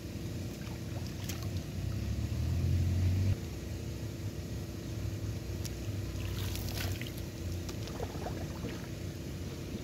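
A steady low rumble, louder for the first three seconds and then dropping off suddenly. Near the end come a few splashes as river water is scooped by hand.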